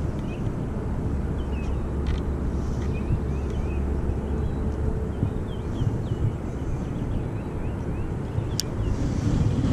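Wind buffeting an action camera's microphone: a steady low rumble, with faint short chirps in the background and one sharp click near the end.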